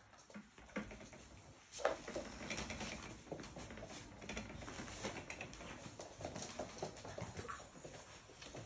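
Labrador puppies playing: a quick, irregular patter of paws and claws on a laminate floor, with scuffling in bedding and toys and a few brief puppy noises.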